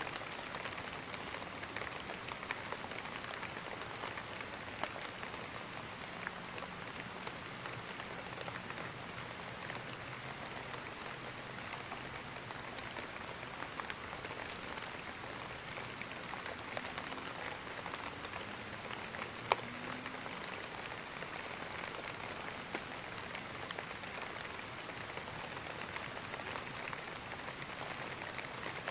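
Steady rain falling, an even hiss with many small drop ticks scattered through it. Faint low tones come and go under it in the middle stretch.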